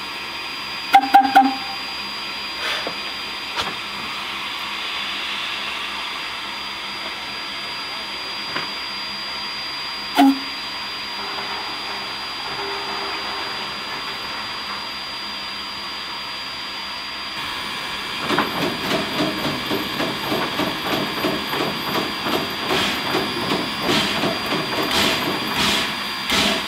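Heisler geared steam locomotive standing with a steady hiss of steam, broken by a few sharp metal clanks. About two-thirds in, a rhythmic steam beat starts, roughly two to three puffs a second, with steam blowing out low on the engine.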